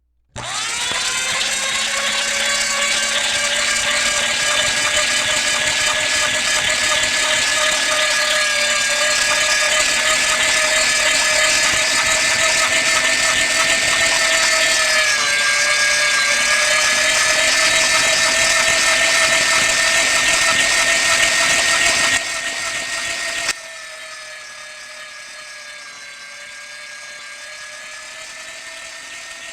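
Electric meat grinder running: a steady motor whine that starts abruptly, sags briefly in pitch about halfway, and falls in two steps to a much quieter level about three-quarters of the way through.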